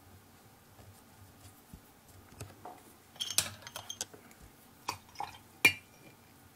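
Light clicks and taps of small hard objects being handled on a desk, starting about two seconds in, with the sharpest click near the end.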